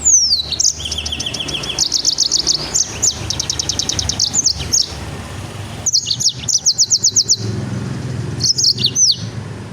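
A songbird singing in phrases of rapid, high trills, strings of quick downward-sweeping notes. The song opens with a long falling whistle and breaks off briefly around the middle and again about three-quarters through.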